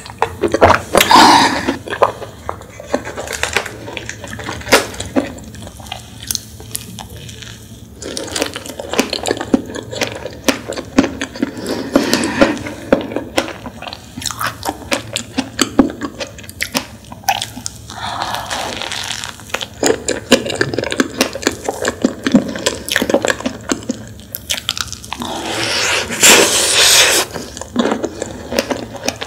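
Close-miked eating sounds: a couple of gulps from a bottled drink about a second in, then chewing a soft strawberry-and-whipped-cream sponge pastry, with wet mouth clicks and smacks throughout.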